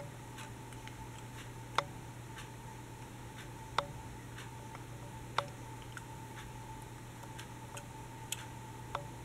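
Light clicks and taps of a die-cast toy locomotive being turned over in the hands, with three sharper clicks in the first half, over a steady faint hum.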